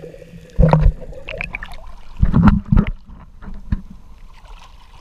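Seawater sloshing and splashing against a camera held at the sea surface, with heavy low splashes about half a second in and again around two and a half seconds in, among small clicks of water.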